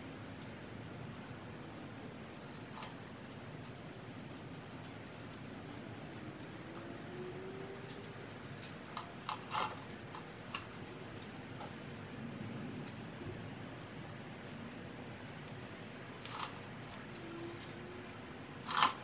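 Gloved hands rubbing and wiping over a bare, rusty wheel hub, with a few light clicks around nine to ten seconds in and a sharper click at the end.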